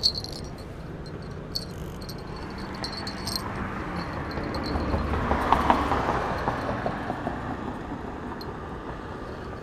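A road vehicle passing by on the bridge, its tyre and engine noise growing to a peak about halfway through and then fading away.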